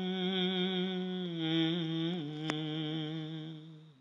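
A man's voice holds one long sung note at the end of a Tamil hymn line, dipping slightly in pitch about two seconds in and fading out near the end. A single sharp click is heard partway through.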